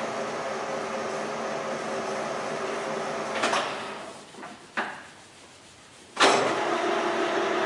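LeBlond 13" x 32" engine lathe's headstock running steadily in middle range. About three and a half seconds in a clunk of the controls and the spindle winds down, with another click near five seconds; after a quieter pause a sharp clunk about six seconds in and the lathe runs up again with a steady whine.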